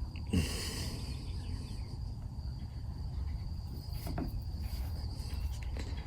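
Insects, crickets by their sound, trilling steadily at one high pitch over a low background rumble, with a couple of faint knocks.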